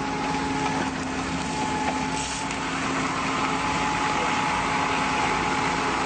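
Off-road 4x4's engine running steadily under load as it crawls through brush and mud, its note held level.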